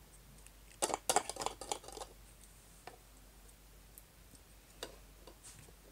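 Small plastic clicks and knocks of Playmobil toy pieces being handled and set down on a plastic play set: a quick cluster about a second in, then a few single clicks.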